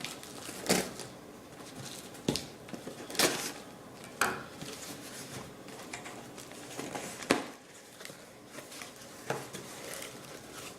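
A box and its packaging being opened and handled by hand: irregular knocks, taps and light scrapes, with about half a dozen sharper clicks spread over the stretch.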